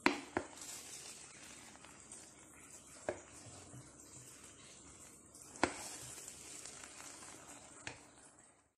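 A spoon stirring cooked jollof rice in a metal pot: a soft, steady scraping and rustling of the rice, with several sharp knocks of the spoon against the pot. The sound stops suddenly near the end.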